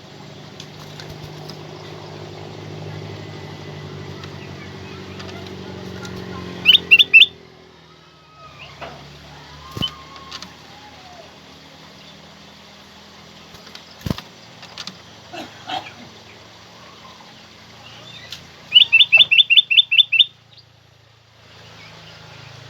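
Kutilang emas, a bulbul, calling in two loud bursts of rapid repeated notes: three notes about a third of the way in and a quick run of about eight near the end. A steady low rumble, like a passing vehicle, fills the first third.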